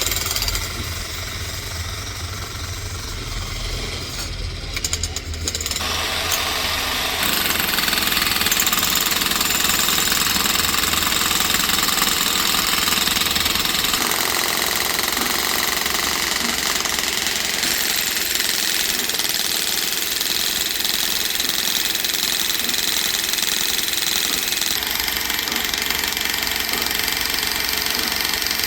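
An engine running steadily with a low rumble, giving way about six seconds in to a louder, hissing mechanical noise that shifts character abruptly a few times.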